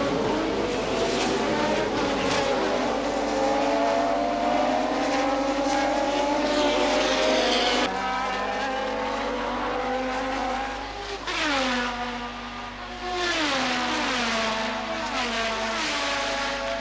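1988 Formula One car engine at high revs, its pitch climbing steadily for about eight seconds. Then an abrupt break, and the revs drop in several quick steps as the car downshifts.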